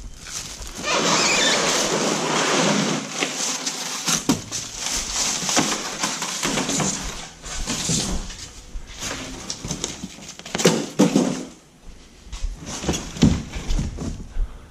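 Cardboard, plastic wrap and foam packing being handled and pulled off a new fridge: a long rustle at first, then shorter rustles and scrapes broken by sharp knocks.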